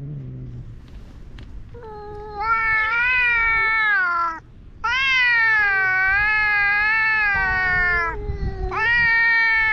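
Two cats in a face-off, caterwauling: a low growl fades out, then come three long, loud, wavering yowls with short breaks between them. It is the threat display of a cat fight starting.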